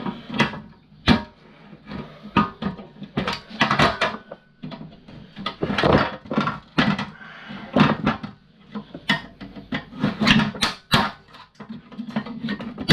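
Parts of a fuse board being worked apart by hand and with a tool: a run of irregular clicks, taps and knocks of plastic and brass pieces, with short scraping stretches.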